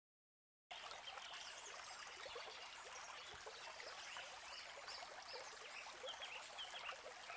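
Faint babbling, trickling water like a small stream, with many small splashes and flicks in a steady hiss; it starts just under a second in.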